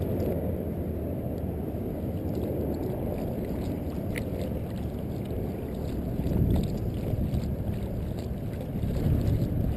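Wind rumbling on the microphone over water lapping and sloshing close by, with a few faint ticks and small swells in level.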